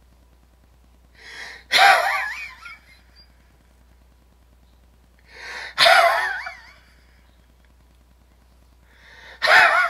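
A man laughing hard in three bursts about four seconds apart, each starting with a sharp intake of breath and breaking into a high, wavering laugh.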